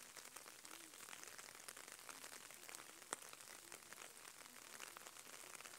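Near silence with a faint patter of light rain: many small irregular ticks, and one sharper click about three seconds in.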